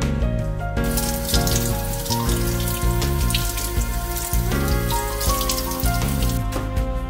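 Background music with a steady beat, and a kitchen tap running water over a bunch of parsley from about a second in until near the end.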